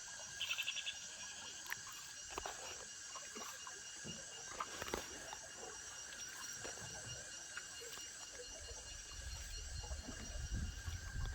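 Rainforest chorus of insects and frogs: steady high-pitched buzzing at several pitches, with a short rapid trill about half a second in. A low rumble comes in near the end.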